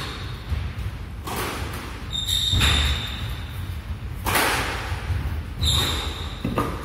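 Squash rally: sharp thwacks of rackets hitting the ball and the ball striking the court walls, a hit every second or so, each echoing briefly. Two short high squeaks, about two and five and a half seconds in, are sneakers on the wooden court floor.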